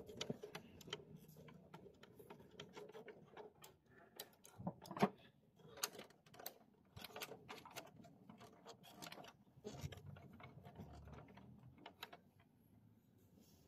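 Faint, irregular small clicks and scrapes of a small screwdriver working a screw in an inkjet printer's metal and plastic frame, with a sharper click about five seconds in.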